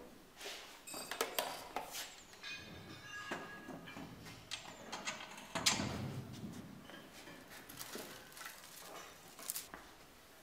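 Scattered clicks, knocks and clatter of metal tool parts being handled on a hand-push HDPE butt fusion machine: the electric pipe facer is lifted out and set down in its stand, and the pipe clamps are worked by hand. The loudest knock comes about six seconds in.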